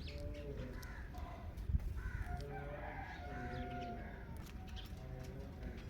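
Indian ringneck parakeet making a string of short, pitched calls and chatter, one call held for about half a second near the middle. There is a low hum throughout and a brief thump about two seconds in.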